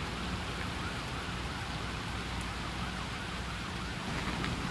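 Steady hiss of water on a flooded street, with a low rumble of traffic underneath.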